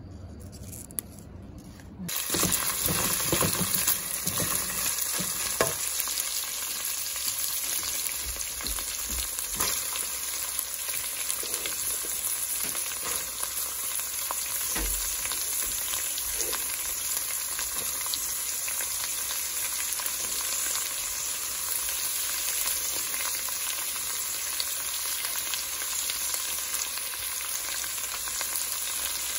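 Diced onion and ground pork sizzling in hot oil in a frying pan, a steady hiss that starts abruptly about two seconds in, with short scrapes of a spatula stirring it now and then.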